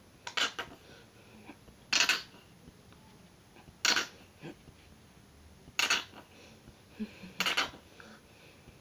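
Short, sharp clacks from handling a hard plastic item, about one every two seconds, some of them doubled.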